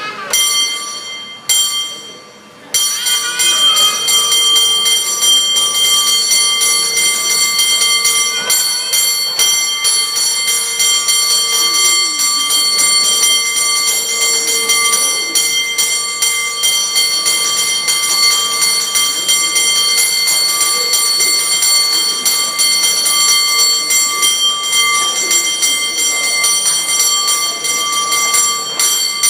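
Cable car bell rung by hand: a couple of opening strikes, then from about three seconds in a fast, unbroken run of rapid rhythmic strikes, the bell's ringing tones sounding throughout.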